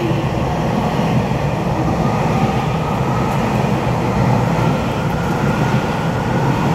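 Taiwan Railway EMU3000 electric multiple unit running through a station platform without stopping, a steady loud rumble of wheels on rails with a faint high whine over it.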